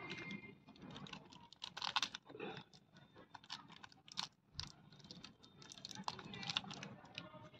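Irregular crackling, rustling and light clicking of hands working compost soil around a nursery seedling as it is planted in a cut-down metal oil tin.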